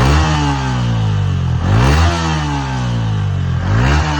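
Yamaha MT-15's 155 cc single-cylinder engine on its stock exhaust, revved in neutral in short throttle blips about every two seconds, the revs climbing quickly then falling back toward idle each time.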